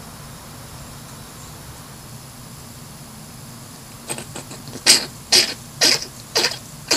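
Hedgehog coughing: a run of short, sharp coughs, roughly two a second, begins about four seconds in, after a quiet stretch. The uploader is unsure whether these are coughs or sneezes.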